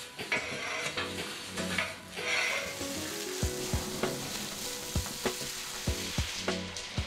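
Water spraying from a hose into a brick-lined chamber onto a grey mass, a steady hissing spray, with background music.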